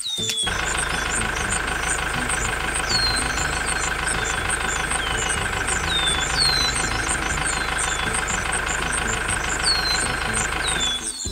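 A small engine running steadily at an even idle-like pace. Short high falling chirps come in over it every second or two. It stops abruptly at the end.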